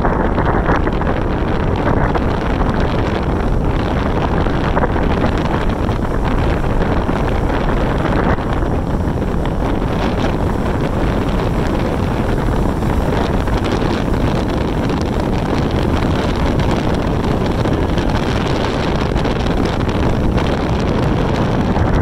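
Wind rushing over the microphone from a moving vehicle, with the vehicle's road noise underneath; a steady, dense rushing with no breaks.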